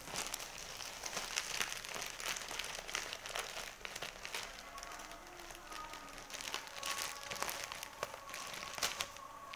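Black plastic mailer bag crinkling and rustling as hands handle and pull at it, a continual run of short crackles.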